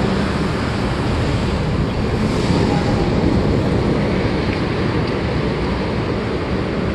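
Steady rushing noise of traffic on the elevated road overhead, mixed with wind on the microphone.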